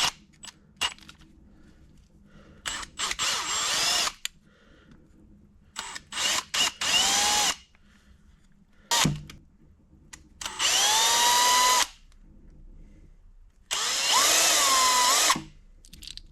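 Power tool cutting or grinding a steel pushrod in four short runs of a second or so each. The motor's whine dips and rises in pitch as the tool bites into the metal and eases off.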